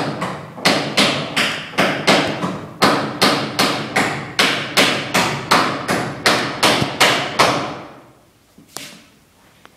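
Hammer striking repeatedly in a steady rhythm, about three sharp blows a second, then stopping.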